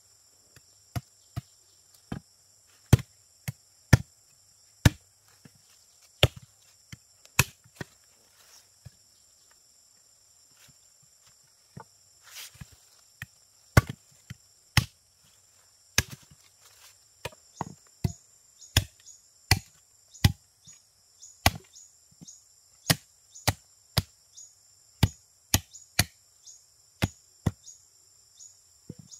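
Repeated sharp chopping strokes on wood, about one a second at first, pausing briefly in the middle, then quickening to about two a second. A steady high drone of cicadas or crickets runs behind.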